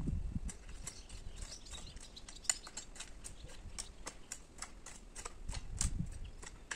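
Hand hoe working dry, stony garden soil: scattered light scraping clicks, with heavier chopping thuds at the start and again toward the end.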